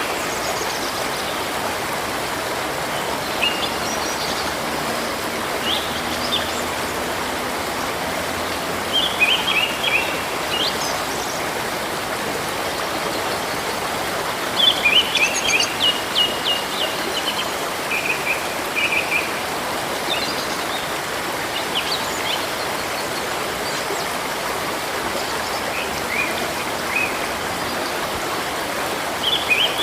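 Steady rushing of a river or stream, with songbirds chirping in short bursts every few seconds over it.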